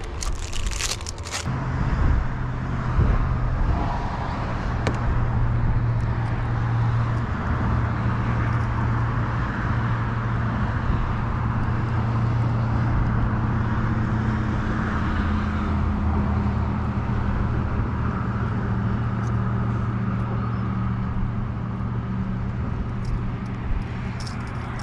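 Steady hum of an Old Town ePDL kayak's electric pedal-drive motor running, over a constant rush of water along the hull. A few sharp plastic clicks in the first second or so as a lure package is handled.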